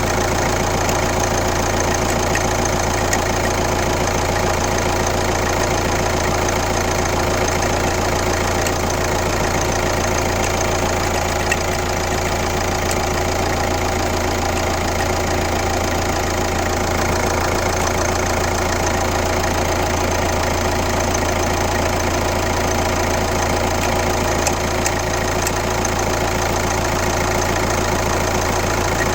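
Kia Ceed 1.6 CRDi D4FB four-cylinder common-rail turbodiesel idling steadily with an even diesel clatter, carrying the weird engine noise that the owner is trying to pin down.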